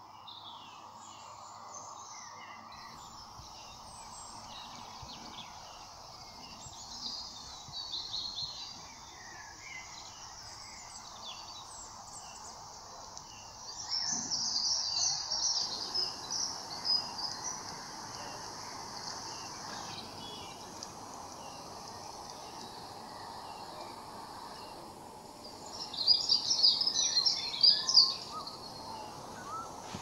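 Small songbirds chirping and twittering over a steady background hum, with two louder spells of rapid, high twittering, one about halfway through and one near the end.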